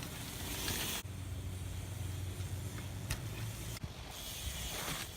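A Deity Cryptkeeper hardtail being ridden: a steady low rumble of tyres rolling over the ground, a hiss in the first second, and a few sharp clicks, the clearest about three seconds in.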